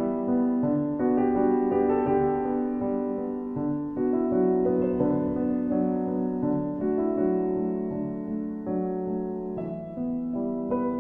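Solo piano playing a gentle, flowing piece of background music, with repeated broken-chord figures under a simple melody.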